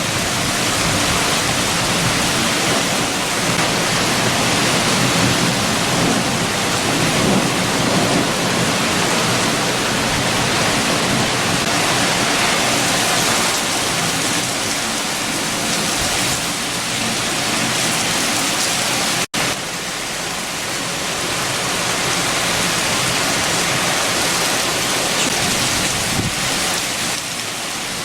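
Heavy rain and strong wind: a dense, steady rush with a shifting low rumble underneath. The sound cuts out for an instant about two-thirds of the way through, then carries on.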